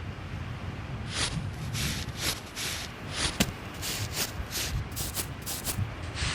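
Sand being scraped and scooped out by hand to dig a Dakota fire hole: about a dozen short swishes, with one sharp click about three and a half seconds in.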